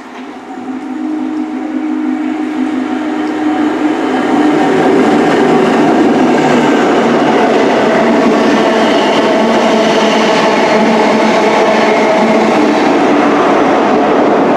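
Passenger train passing close by. It grows louder over the first four seconds, then stays loud and steady until the end.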